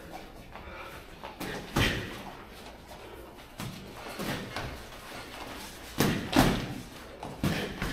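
Boxing gloves landing punches in sparring: irregular thuds and slaps of padded gloves on gloves and headgear, the hardest hits about two seconds in and a close pair about six seconds in.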